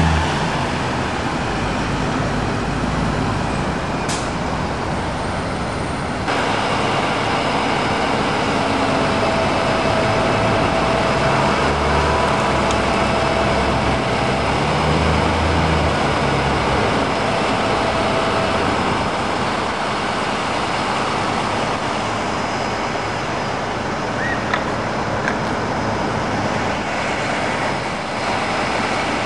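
Heavy diesel engines and vehicles running steadily, a continuous mechanical din that changes character about six seconds in.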